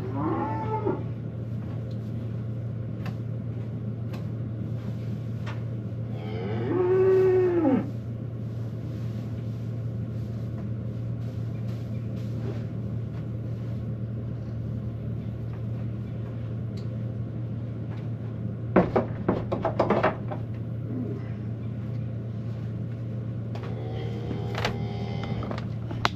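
Cattle mooing, about four separate calls, the loudest about seven seconds in with a rising-then-falling pitch, over a steady low hum.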